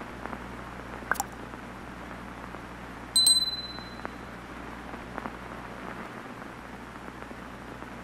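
Steady TV static hiss with faint crackles, a sharp mouse-click sound about a second in, and a bright bell ding about three seconds in that rings out for half a second: the click and notification-bell sound effects of a subscribe-button animation.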